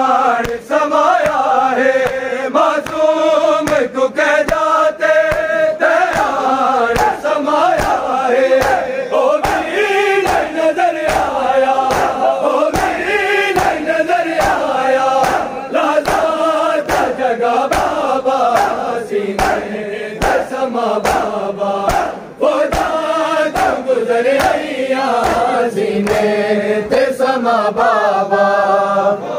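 A large group of men chanting a noha lament in unison, with a steady beat of open-hand slaps on bare chests (matam) keeping time, about one and a half slaps a second.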